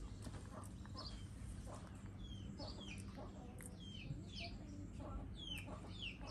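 Birds chirping in short, falling notes, often in pairs, roughly once a second, over a low steady background hum.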